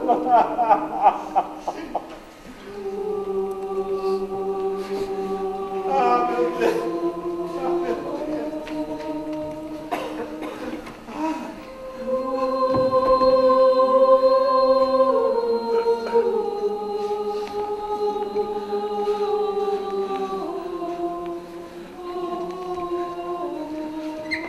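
A choir singing slow, sustained chords in several parts, the harmony shifting every few seconds and swelling louder about halfway through.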